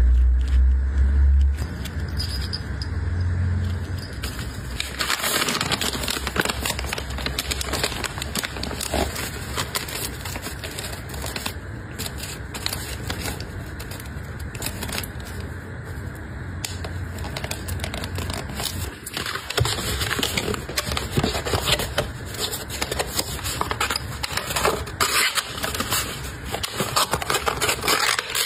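Close-miked packing sounds: a clear plastic bag crinkling, then paper and card rubbing and scraping as a postcard and a kraft paper box are handled and folded, with many small clicks and taps. A low rumble in the first couple of seconds.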